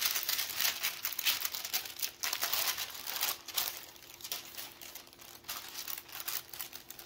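Thin translucent wrapping paper crinkling and rustling as hands fold it back and handle the package, in many quick crackles that are busiest in the first few seconds and thin out toward the end.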